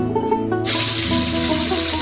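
Fish pieces frying in hot oil in a kadai: a loud sizzle that starts suddenly about two-thirds of a second in and then holds steady, over background music.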